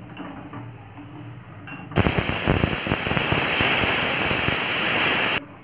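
Pressure cooker whistle going off: a loud hiss of escaping steam with a sputtering edge, starting about two seconds in and cutting off suddenly after about three and a half seconds.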